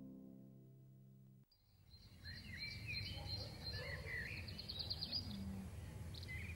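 Plucked-string theme music fades out during the first second and a half. Birds then chirp and sing over a steady low background hum of open country.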